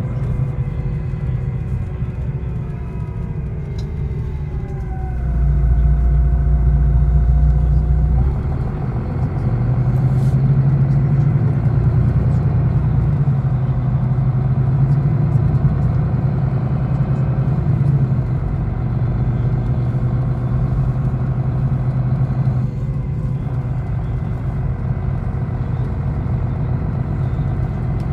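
Engine and drive rumble of an airport apron bus heard from inside the cabin as it drives across the apron. A whine drops in pitch over the first few seconds, and the low rumble swells louder for a few seconds from about five seconds in.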